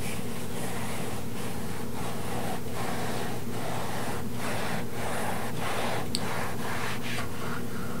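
A knife sawing back and forth through a block of compressed cotton candy: soft rasping strokes about twice a second, over a steady low hum.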